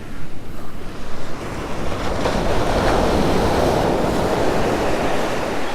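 Ocean surf: a wave breaks and washes up the beach, swelling about two seconds in and easing toward the end, with wind rumbling on the microphone.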